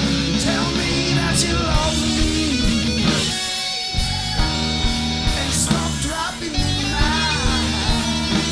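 Electric guitar played along with a blues-rock band recording: lead lines with bent notes over bass and drums, with no singing.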